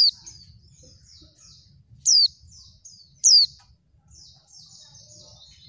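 Female white-eye (pleci) calling: three loud, sharp notes that slide down in pitch, at the start, about two seconds in and about a second later, with quieter high twittering between them.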